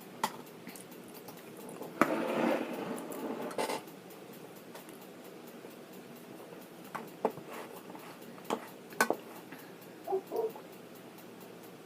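A spoon clinking and scraping against a dish a few separate times while eating, with a rustle lasting a couple of seconds about two seconds in.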